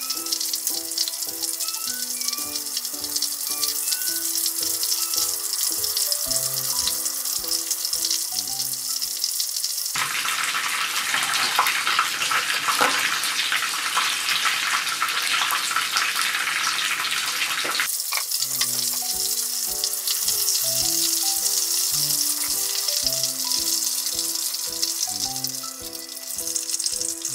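Battered shrimp deep-frying in a pan of hot oil: a steady, dense crackling sizzle. Background music plays over it for the first third and again in the last third, and drops out in the middle so the frying is heard on its own.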